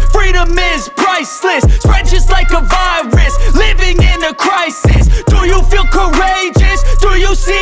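Hip-hop music with a rapped vocal over a heavy bass beat.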